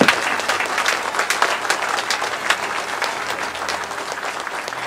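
Crowd applauding, slowly dying down toward the end.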